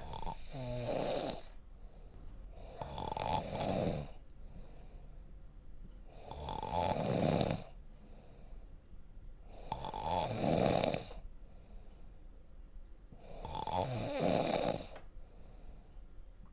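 A person snoring in a slow, regular rhythm: five snores of about a second and a half each, one every three and a half seconds or so, with quieter breaths between.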